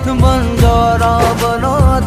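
Hindi film-style love song playing, with a steady drum beat under a melody that glides up and down.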